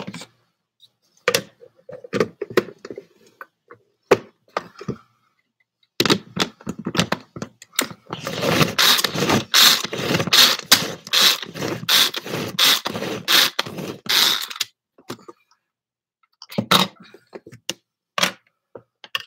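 A knife knocking and scraping on a cutting board as cooked rotisserie chicken is chopped up: a few scattered knocks, then a dense stretch of rapid chopping and scraping lasting several seconds, then a few more knocks near the end.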